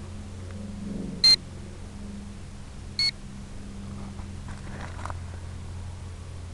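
Two short electronic beeps about a second and three-quarters apart, each a single high steady tone, over a steady low hum.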